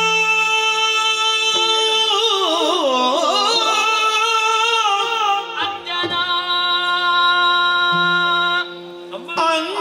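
Yakshagana bhagavata singing a drawn-out, ornamented vocal line over a steady shruti drone, with long held notes and wavering turns, and a short break near the end.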